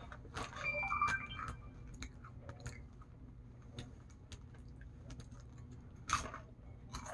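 Crunchy multigrain chips (Sun Chips) being bitten and chewed with the mouth open: a series of short, crisp crunches. They are densest and loudest about a second in, with another sharp crunch about six seconds in.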